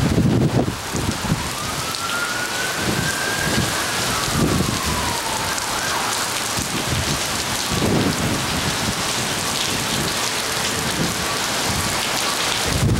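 Heavy tropical-storm rain pouring onto paved ground, with gusts of wind buffeting the microphone. A single faint tone rises and then falls, lasting about four seconds, beginning a second or two in.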